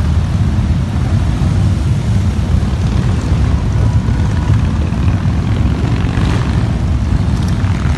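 A parade column of motorcycles, mostly Harley-Davidson V-twin cruisers, riding past in a continuous stream. Their engines make a steady, deep, massed rumble.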